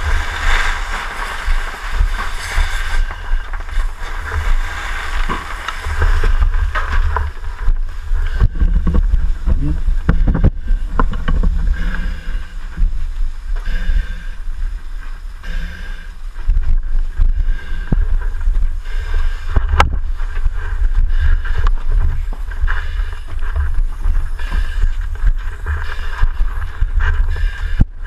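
Muffled low rumble with scattered knocks and bumps from a firefighter's body-worn camera as he moves and handles gear.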